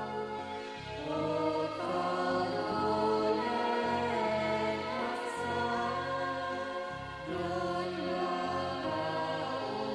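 Slow background music with a choir singing long held notes.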